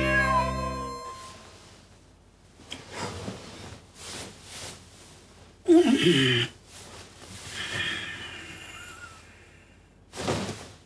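The tail of a harmonica theme tune ends about a second in. After that a man in bed breathes heavily, with a loud sigh falling in pitch about halfway through and more soft breaths after it.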